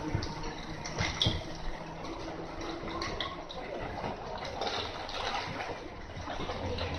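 Iyotetsu city streetcar rolling away over curved track and points, with a few sharp wheel-on-rail clicks about a second in, under a steady hiss of outdoor noise.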